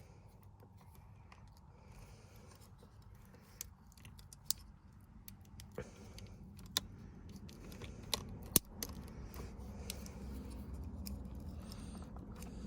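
Scattered sharp clicks and small clinks of a flathead screwdriver prying plastic trim clips loose under a car's steering wheel, with a low handling rumble building in the second half.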